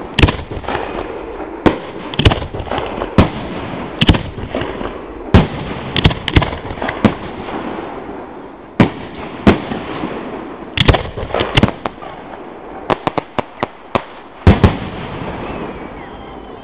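Fireworks display: aerial shells bursting with loud sharp bangs every second or so over a steady crackle, with a quick run of bangs about two thirds of the way in. The last bangs come near the end and the crackle then dies away.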